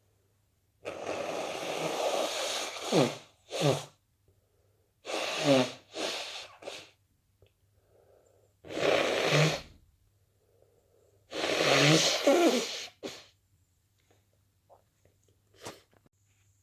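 A person with a cold sneezing several times in a row: loud noisy outbursts, the first drawn out over two seconds, followed by three more clusters, with short breaths between them.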